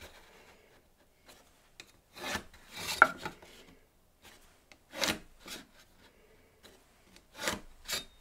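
Pencil drawn along a steel rule on plywood, marking out lines: four or five short strokes with pauses between them. The loudest, about three seconds in, ends in a sharp click.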